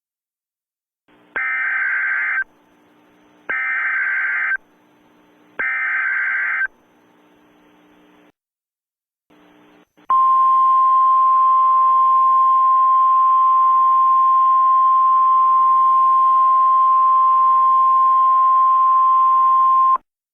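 Emergency Alert System tones: three rasping data bursts of the digital alert header, each about a second long and about two seconds apart, with a low hiss between them. Then, about ten seconds in, a long steady attention tone that holds for about ten seconds and cuts off sharply, signalling that a spoken emergency message follows.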